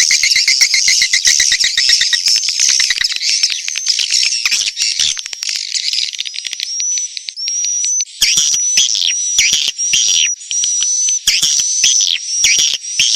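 Edible-nest swiftlet calls from a lure recording played to draw swiftlets to a nesting house. It opens with dense buzzy twittering mixed with rapid trains of clicks. After about six seconds it turns into a string of short chirps, each ending on a high held note, repeated about once a second.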